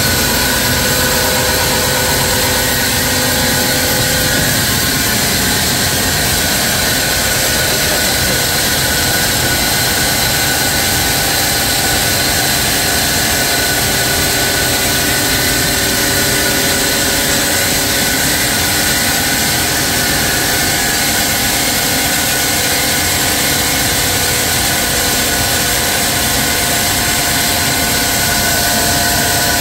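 Sawmill saw machinery running steadily and loud: an even rushing noise with a few steady tones over it.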